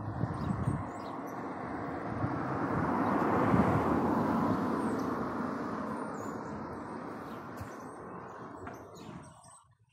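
A vehicle passing by: an even rushing noise of tyres and engine swells over a few seconds, peaks, then slowly fades away and cuts off near the end. Faint bird chirps sit above it.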